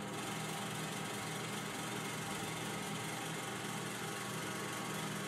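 Puhui T-960 reflow oven running with its conveyor belt motor switched on: a steady, even mechanical hum with a low drone.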